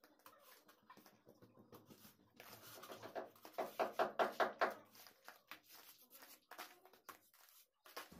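Trowel working wet cement-sand mortar against a brick wall around a switch box: faint scattered scrapes, then a quick run of rhythmic strokes, several a second, in the middle.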